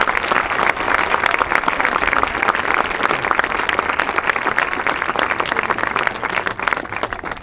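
Crowd applauding an award placing just announced, a dense patter of many hands clapping that dies down near the end.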